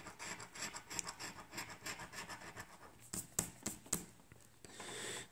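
Scratch-off lottery ticket being scratched, a faint rasping of short scraping strokes across the coating, with a few sharper scrapes about three seconds in.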